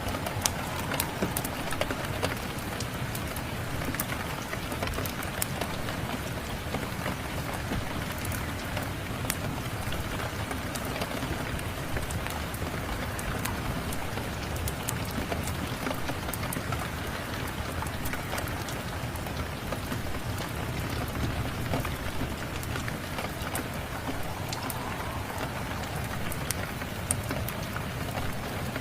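Steady rain mixed with a fire crackling, with sharp pops and snaps scattered through the rain.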